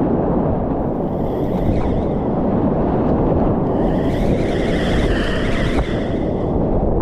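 Loud, steady rush of big whitewater rapids, with water churning and splashing close to a chest-mounted action camera.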